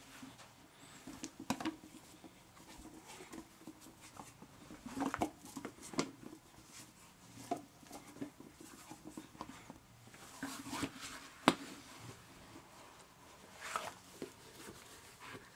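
Irregular rubbing, rustling and soft knocks of hands pulling on and adjusting a silicone mask, with one sharper knock about three-quarters of the way through.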